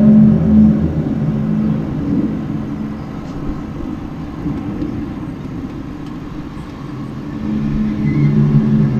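A low, loud droning hum made of several steady tones layered together, one of the unexplained 'strange noises' heard outside that the recorder cannot identify. It eases off about two seconds in and swells back up near the end.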